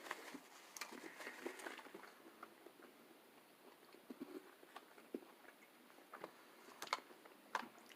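Faint chewing and mouth clicks from someone eating a chicken sandwich, with two sharper clicks near the end.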